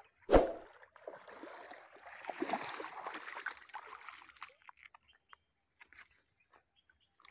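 A sharp thump about a third of a second in, then a hooked snakehead (murrel) splashing at the water's surface for about three seconds as it is reeled in. The last couple of seconds are nearly quiet, with a few faint clicks.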